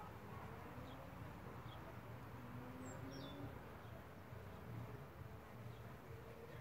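Bees buzzing around a bee-hotel nest block, a steady low hum, with a few faint bird chirps in the background.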